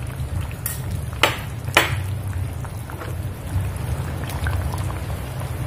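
Curry bubbling at the boil in a ceramic pot over a gas burner, with a steady low rumble. A nylon spatula stirring the curry knocks sharply against the pot a few times, loudest twice between one and two seconds in.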